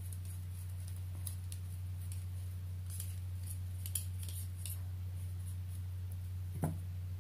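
Faint ticks and scrapes of threaded arrow-shaft sections being screwed together by hand, with a light knock near the end, over a steady low hum.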